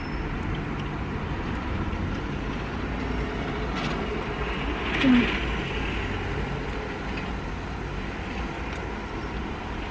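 Steady low vehicle rumble heard inside a car, with a brief burst of noise about halfway through.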